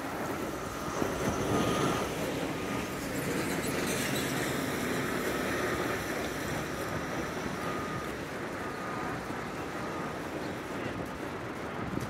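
Steady city street noise of vehicles going by, with wind on the microphone. A faint high tone repeats in short dashes.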